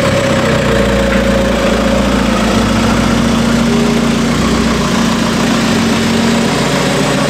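Toyota truck engine idling steadily.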